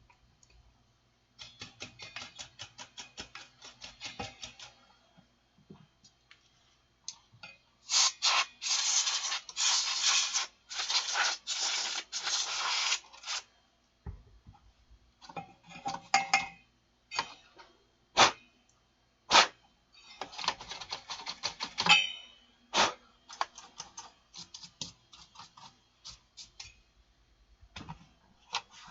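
Hands working on an amplifier chassis: a fast run of fine clicks, then several loud scratchy, rasping stretches, then scattered sharp clicks and knocks.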